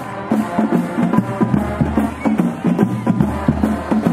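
Music with a steady, driving drum beat and a repeating bass line.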